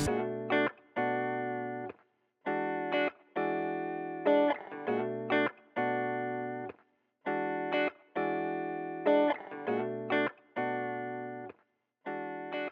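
Background music: a guitar playing chords that each ring out and fade, with brief silences between them.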